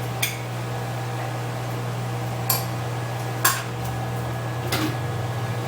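Four light clicks of small hard tools or parts being handled on a phone under repair, spread over a few seconds, over a steady low electrical hum.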